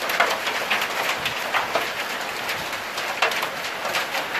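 Heavy icy snowfall pattering steadily: a dense hiss with many small ticks as pellets strike the ground and nearby surfaces.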